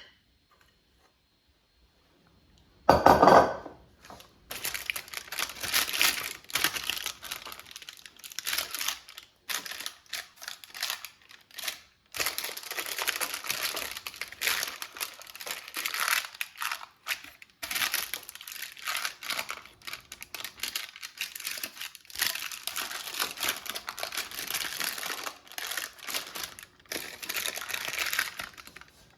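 A loud thump about three seconds in, then parchment paper crinkling and a spatula scraping as thick chocolate fudge mixture is worked out of a bowl into a parchment-lined baking dish.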